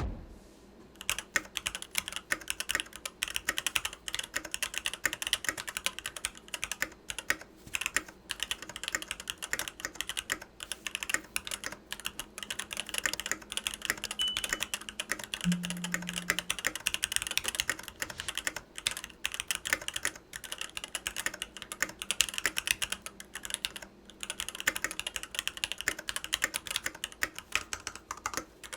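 Typing on a Varmilo Sea Melody mechanical keyboard with Varmilo EC V2 Daisy switches: a fast, uneven run of key clacks with a few brief pauses.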